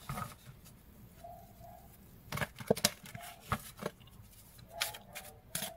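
A deck of oracle cards being shuffled by hand: soft, irregular card rustles and flicks, with a run of sharper clicks from about halfway in.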